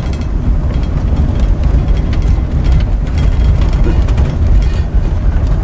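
Vehicle driving on a dirt road, heard from inside the cab: a steady low rumble of engine and tyres on the road surface.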